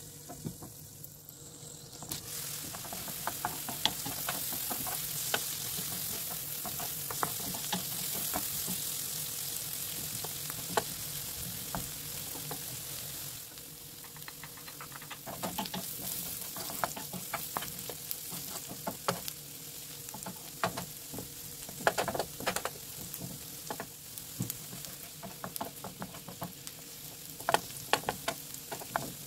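Food sizzling in hot oil in a frying pan while a utensil stirs it, with many sharp taps and scrapes against the pan. The sizzle eases a little about halfway through, and the taps continue.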